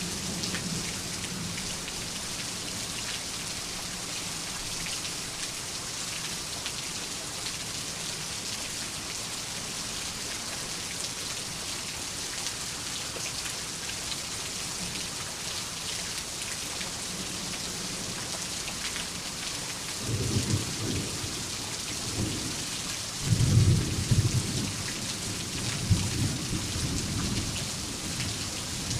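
Steady heavy rain falling, with a thunderclap rumbling in about two-thirds of the way through, loudest a few seconds later and rolling on in swells to the end.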